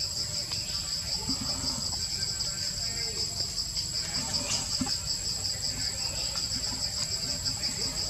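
Forest insect chorus: a continuous high shrill with a fast, even pulse, over a low steady rumble.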